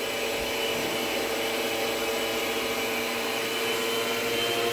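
Electric stand mixer running at a steady speed, its motor whine holding one pitch as the beaters churn through cream cheese and pumpkin.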